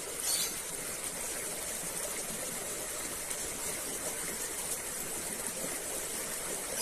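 Steady hiss of flowing stream water, with a short louder burst of noise just after it begins.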